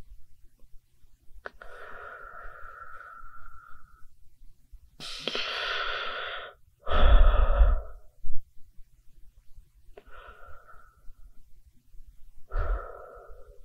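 Human breaths through the mouth, about five of them one after another, each lasting a second or two. The loudest comes about seven seconds in, with a low rumble under it.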